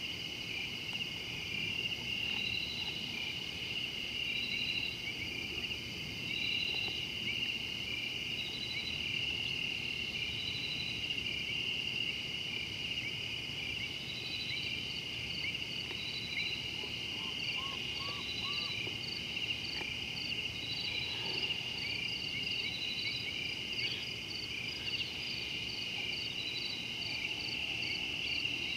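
Night chorus of insects: a steady, shrill high trill, with a higher pulsed call repeating every couple of seconds that becomes a quicker, continuous run of pulses about halfway through. A few faint short rising notes come a little past the middle.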